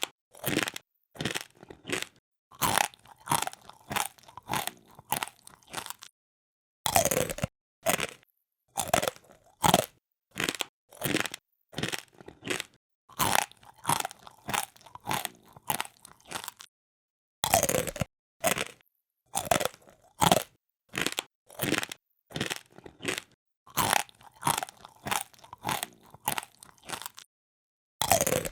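Someone chewing a crisp, hard snack close to the microphone, the 'poripori' crunching of eating: sharp crunches about twice a second, in runs broken by a few short silences.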